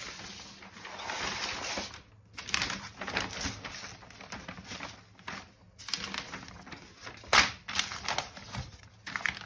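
A large folded paper map from an atlas being opened out by hand: paper rustling and crinkling in uneven bursts with sharp crackles, the loudest crackle about two seconds before the end.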